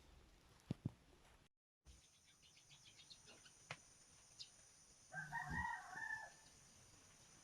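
A single animal call lasting about a second, some five seconds in, against faint background with a few soft clicks.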